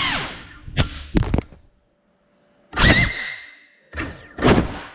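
Small cinewhoop FPV drone (GEPRC CineLog35) crashing indoors: its motor sound dies away, then several sharp knocks and clatters come as it hits and tumbles. Three louder bursts, about three seconds in and twice near the end, carry a short, falling motor whine.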